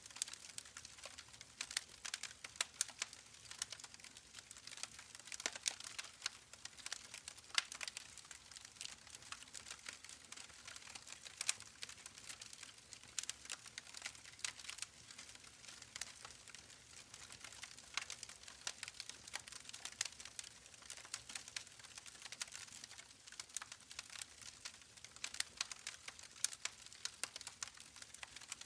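Campfire crackling: many irregular sharp pops and snaps over a soft steady hiss.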